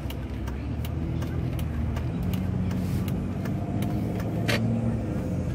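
A car driving, heard from inside the cabin: a steady low engine and road hum, with many light clicks scattered through it.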